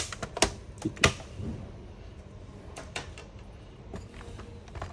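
Plastic bottom cover of an ASUS A456U laptop being lifted off and handled: a few sharp clicks and taps, two loud ones within the first second and fainter ones later.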